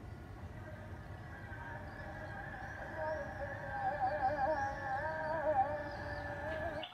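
Music: a held, wavering tone that swells in from about a second and a half in and wobbles in pitch, over a low steady rumble, with faint high chirps above.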